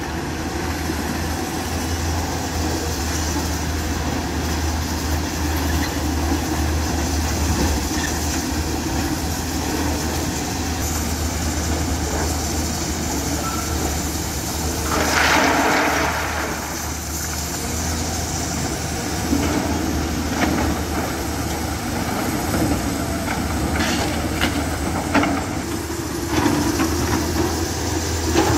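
Hyundai 210 crawler excavator's diesel engine running steadily under load, with a louder rushing sound about halfway through and several clanks and knocks near the end as the bucket works through crushed stone.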